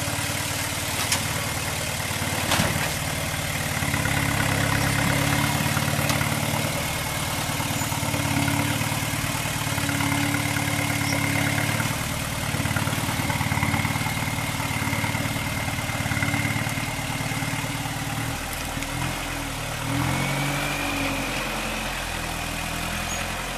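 Lifted Toyota pickup's engine running at low revs as it rock-crawls, the throttle easing on and off so the sound swells and falls gently. A thin high whine runs over it and rises slightly near the end.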